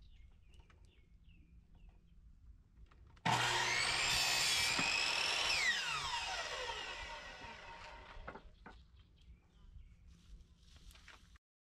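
Electric sliding miter saw starting abruptly and cutting through a wooden board for about two seconds. Its motor whine then falls steadily in pitch as the blade spins down. A few light knocks follow as the cut piece is handled.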